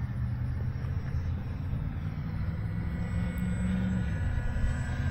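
FMS Avanti S electric ducted-fan RC jet in flight: a steady low rumble with a faint high whine.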